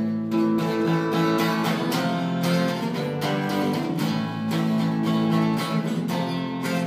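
Acoustic guitar strummed in a steady rhythm, chords ringing between the strokes, as an instrumental passage of a song.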